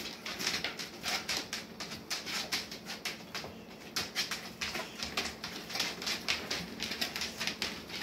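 Dog claws clicking on a tile floor as several basset hounds walk and shuffle about, in a quick, irregular patter of short sharp ticks.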